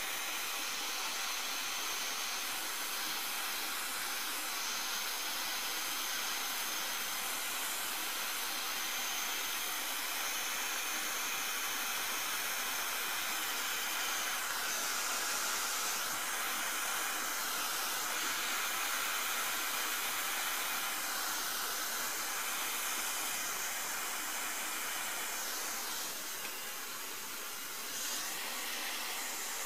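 Blowtorch flame hissing steadily as it heats a copper joint for soldering, dipping briefly near the end.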